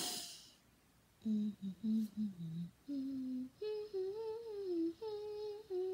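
A young girl humming a short tune with her mouth closed: a few quick low notes, then longer held higher notes that slide gently up and down. It opens with a brief noisy rush of breath.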